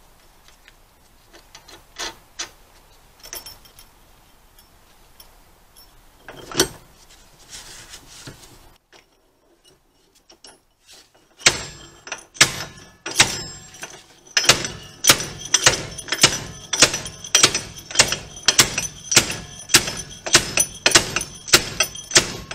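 An improvised slide hammer fitted to a seized rear wheel hub is being worked. Its weight is slammed against the stop over and over, giving sharp, ringing metal-on-metal clanks about two a second from about halfway through. Before that come scattered light clinks of metal parts being fitted together.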